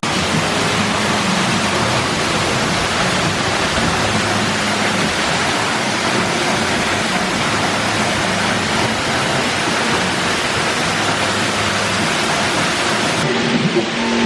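Small waterfall pouring into a pool: a steady rush of falling water.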